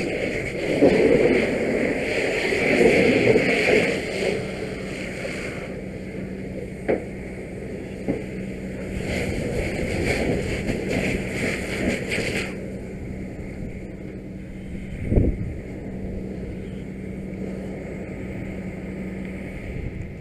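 Rushing spray of a fire hose stream and hissing steam on a burning SUV, over the steady hum of the fire engine's pump. The rushing cuts off suddenly about twelve seconds in, leaving the pump hum and a couple of knocks.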